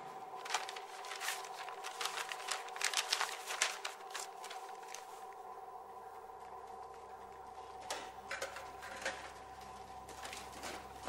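Paper rustling and crinkling as sheets are handled: a dense run of short crackles for the first few seconds, then only a few scattered ones, over a steady hum.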